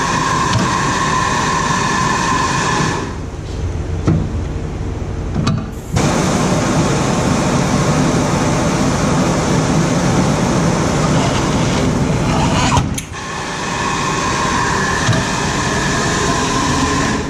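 Tire changer's pneumatic bead breaker pushing the bead off a tire's rim: a loud steady rushing noise with a whistling tone during the first three seconds and again near the end, broken by short drops about three, six and thirteen seconds in.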